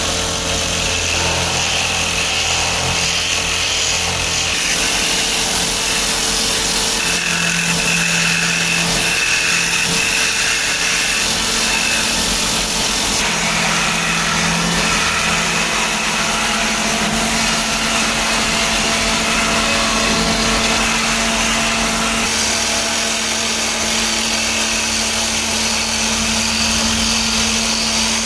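Motor-driven cue-shaping lathe running, its cutter shaving a spinning wooden cue blank: a steady hum under a continuous rasp of wood being cut. The sound shifts abruptly a few times, at about four seconds in, a quarter of a minute in and again near the last third.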